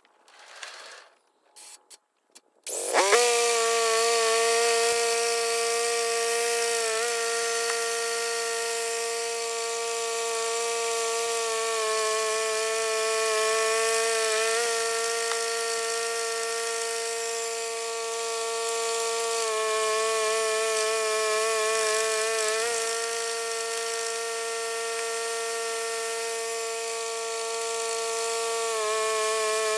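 Bandsaw mill starting up about three seconds in, then running steadily with a high-pitched whine as it saws a log into boards. The pitch sags briefly every few seconds under the changing load of the cut.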